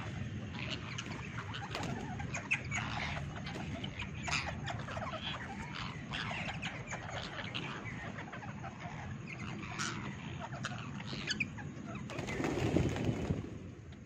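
A flock of rose-ringed parakeets feeding on corn cobs: a busy stream of short chirps and pecking clicks. Near the end comes a louder rush of wingbeats as many of the birds take off.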